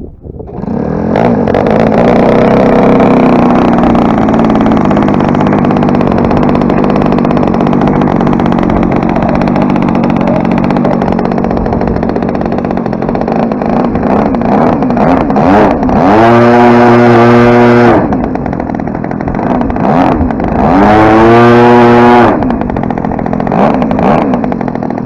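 35cc NGH single-cylinder two-stroke gas engine of an RC airplane, turning a 20x8 propeller, comes in loud about half a second in and runs steadily at a fast idle. About two-thirds of the way through it is run up to high throttle twice, each time for about two seconds, then eased back.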